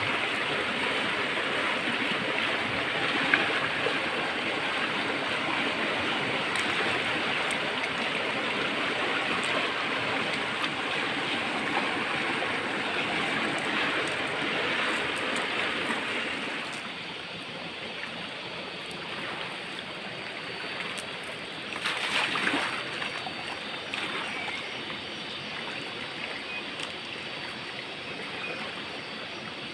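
Fast-flowing muddy river rushing steadily past rocks on the bank. The rush drops somewhat a little past halfway, and a brief louder swell of noise comes a few seconds later.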